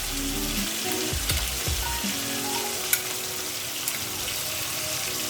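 Mushrooms and sun-dried tomatoes sizzling as they fry in olive oil in a pan, a steady crackling hiss, with a single sharp click about three seconds in.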